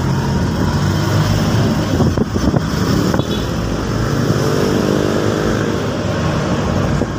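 Engine of a small motor vehicle running steadily while riding slowly along a street, with road noise. About halfway through, a higher steady hum joins for a second or two.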